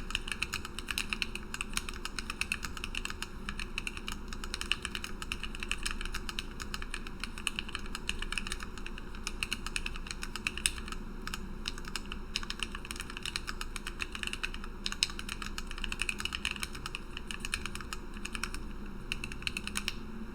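Steady fast typing on a Lily58 split mechanical keyboard with lubed and filmed Gateron Black Ink V2 linear switches, an acrylic plate and bottom, and PBT OEM-profile blank keycaps. The keystrokes come several times a second, with a couple of louder clacks.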